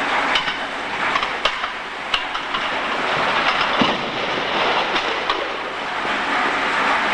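A large building fire burning: a steady rushing noise with frequent sharp crackles and pops, and one heavier crack about four seconds in.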